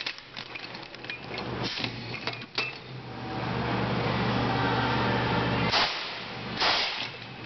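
Air-chamber-powered tire chain tool working heavy steel tire chains. The chain links clink and click at first, then a steady hiss with a low hum runs for about three seconds and cuts off suddenly. Two short blasts of air follow near the end.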